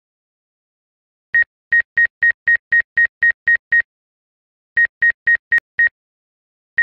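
Short electronic beeps at one high pitch, about four a second: ten in a row, a pause, then five more and one near the end. They are the DJI Fly app's obstacle-proximity warning for the Mavic Air 2, sounding as the drone closes in on tree branches.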